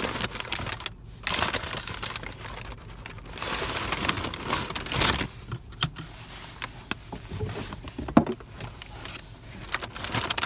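A fast-food paper bag and its food packaging rustling and crinkling as they are handled and opened, with a few sharp clicks.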